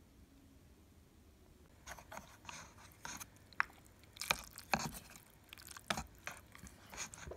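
Wooden chopsticks stirring and lifting instant noodles in a paper cup: a run of irregular clicks and short rustling, scraping sounds, starting about two seconds in.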